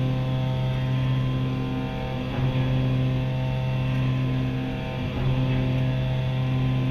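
CNC milling machine cutting a round metal workpiece with an end mill: a steady machining hum and whine that dips briefly twice as the cut goes on.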